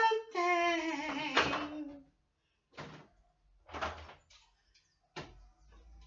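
A woman singing, holding the word "mantém" on a long note that sinks slowly and ends about two seconds in. Then come three short knocks and a faint clatter as things are handled in an open refrigerator.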